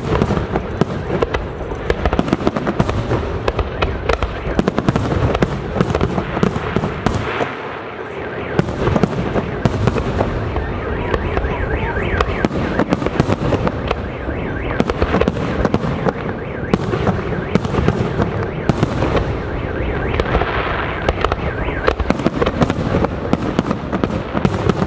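Fireworks display: aerial shells bursting in dense, rapid volleys of bangs, with a brief lull about seven seconds in.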